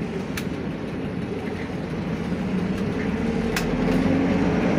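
Mercedes-Benz OF917 medium bus's diesel engine running under way, heard from the driver's cab, its hum rising a little in pitch and loudness in the second half as the bus picks up speed. Two sharp clicks, one near the start and one about three and a half seconds in.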